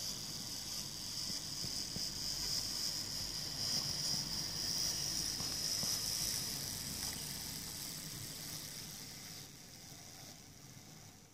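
Hornby OO-gauge J94 0-6-0ST model locomotive running on the track: a steady high-pitched electric motor whine over a low wheel rumble. It is loudest about four to six seconds in as the locomotive comes close, then fades, and the whine stops about nine and a half seconds in.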